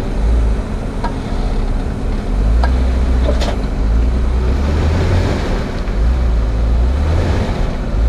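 A Jeep Wrangler JL Rubicon's engine rumbles low under load, easing off for a moment and then pulling again, as the Jeep sits hung up on its frame rail on a rock ledge. A few light clicks come in the first half.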